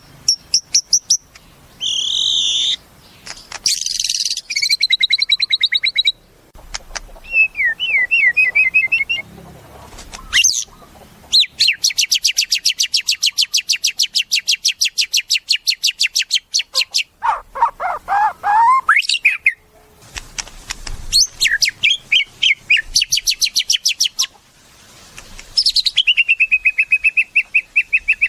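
White-rumped shama (murai batu) singing a varied song: clear whistled notes, rapid trills of quickly repeated notes, and a lower, rougher chattering phrase past the middle, with short pauses between phrases.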